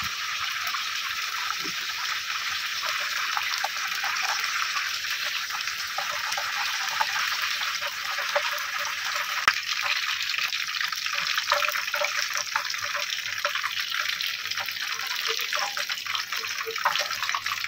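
Hot oil in a wok sizzling steadily with a fine crackle as potato-wrapped chicken fingers deep-fry.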